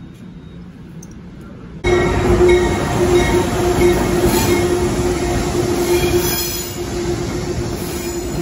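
Amtrak Empire Service train rolling past in an underground station: loud rumble of wheels on rails with a steady whine over it, cutting in abruptly about two seconds in. Before that, faint sound of a distant train.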